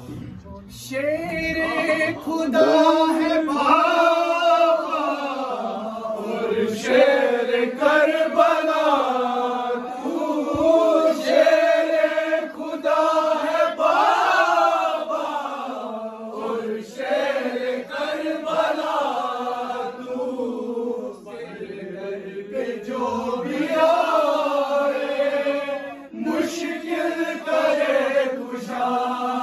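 Male reciter chanting a devotional kalam (religious poem) in long melodic phrases, with no instruments.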